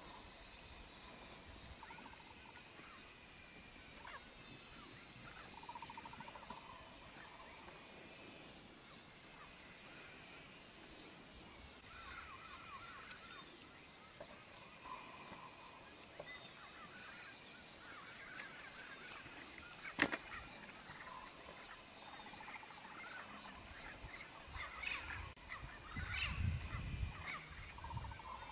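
Faint open-pasture ambience with scattered bird chirps and calls, one sharp click about twenty seconds in, and a louder low rumbling noise in the last few seconds.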